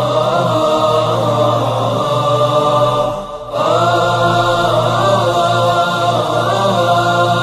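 Wordless choir-like chanting: layered voices holding long notes over a steady low drone. It dips briefly about three seconds in, then resumes.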